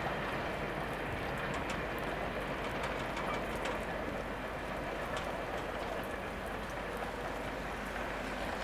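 A freight train's wagons rolling away into the distance, faint under a steady hiss with scattered light ticks.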